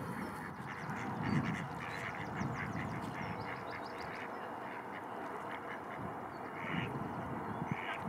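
Mallards quacking: a quick run of short quacks for a few seconds, then two single calls near the end, over steady background noise.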